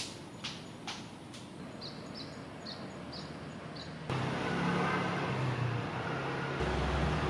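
Outdoor street ambience: a few soft clicks and a series of short high chirps, then from about four seconds in a louder steady rumble with a low hum from a motor vehicle, growing louder near the end.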